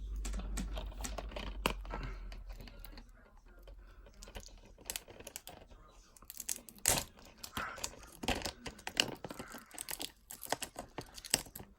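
Packaging being torn open and crinkled by hand, with many irregular sharp clicks and crackles that grow busier and louder in the second half.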